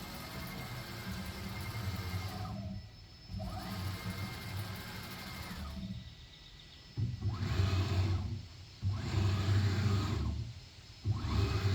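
Onefinity CNC's stepper motors jogging the machine at full 100% speed: a motor whine and hum that rises in pitch as each move speeds up and falls as it slows to a stop, repeated in several fast moves with short pauses between.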